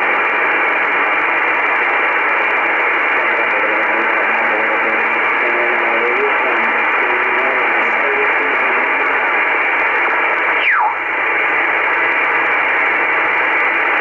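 Icom IC-R8500 communications receiver in upper sideband on the 10-metre amateur band: a steady hiss of band noise, with a weak sideband voice under it that the listener takes for a Japanese amateur (JA) station. About ten seconds in, a whistle slides quickly down in pitch as the dial is tuned past a signal.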